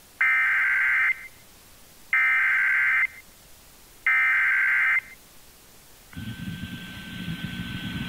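Emergency Alert System SAME header: three bursts of warbling digital data tones, each about a second long, with a second's gap between them. A steady buzzy noise begins about six seconds in.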